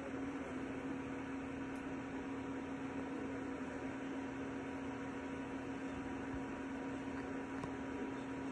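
Creality Ender 3 V3 SE 3D printer running: a steady hum with one constant tone over the whoosh of its fans.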